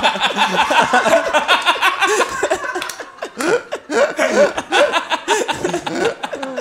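Several men laughing heartily together. The laughter eases briefly about three seconds in, then swells again.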